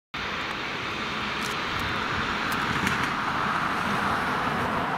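Twin turbofan engines of an American Airlines Boeing 787 Dreamliner running as the airliner rolls along the airfield: a steady jet rush and whine that cuts in abruptly at the start and grows slightly louder.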